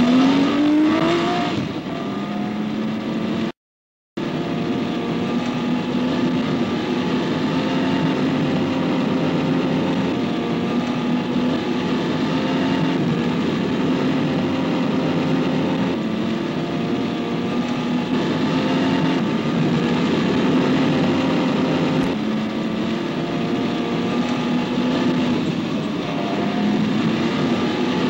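Car engine revving up as it accelerates, then running steadily at road speed with a drone whose pitch shifts a little now and then. The sound cuts out completely for about half a second around four seconds in.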